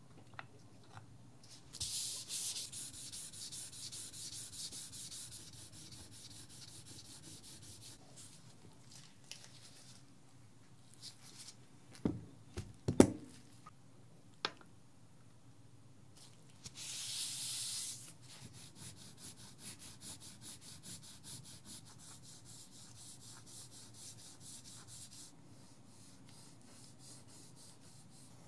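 Quick back-and-forth scrubbing strokes on a wet whetstone, a gritty hiss that comes in two long stretches. A few sharp knocks near the middle are the loudest sounds.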